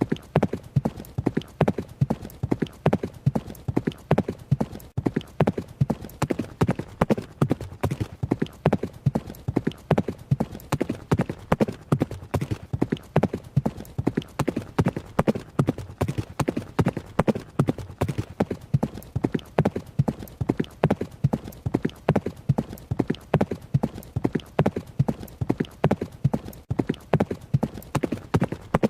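Horse hooves running, a steady, even rhythm of hoofbeats at about four a second.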